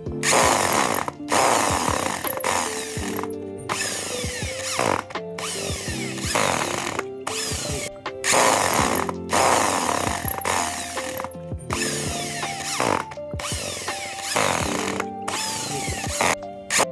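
An electric power tool working wood in short runs of about a second each, starting and stopping a dozen or so times, over background music.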